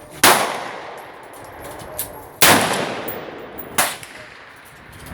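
AR-15 rifle in 5.56 firing single shots: two loud shots about two seconds apart, each with a long echoing tail, then a shorter, sharper crack about a second and a half later.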